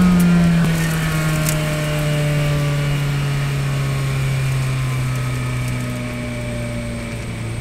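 Spec Racer Ford Gen3's four-cylinder engine heard from the cockpit, its note falling steadily as the revs drop from about 5,500 to 3,700 rpm while the car slows through a corner, over wind and tyre noise.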